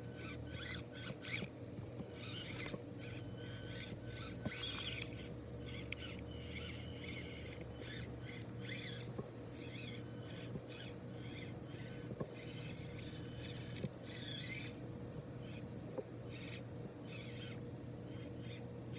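Axial SCX24 mini RC crawler's small electric motor and gears running as it crawls over dirt and stones, with birds chirping throughout.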